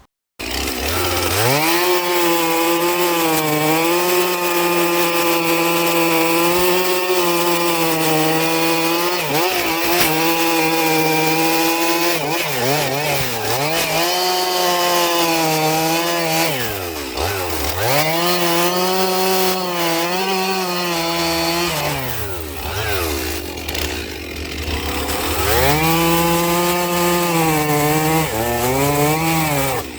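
Stihl MS 362 two-stroke chainsaw with a 24-inch bar cutting firewood logs at full throttle, its pitch holding high and steady under load. The revs dip briefly a few times, drop toward idle about two-thirds of the way through, then rise back to full throttle.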